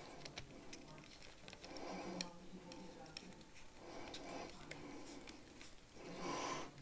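Precision screwdriver driving a T8 Torx screw into a steel pocket clip on a folding knife: faint scattered clicks and scrapes of the bit and screw, with a few soft rustles of handling, the longest near the end.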